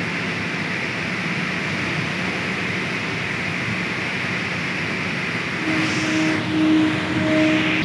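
Electric underslung crane running under test: a steady machine hum and hiss, joined about six seconds in by a low tone that pulses on and off a few times.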